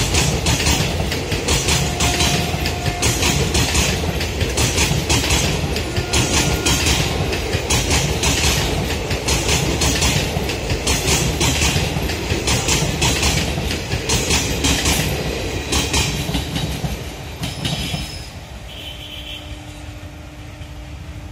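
Wheels of a passing passenger train's coaches clattering rhythmically over the rail joints, over a steady rumble. The clatter falls away about three quarters of the way through as the last coach goes by, leaving a fading rumble.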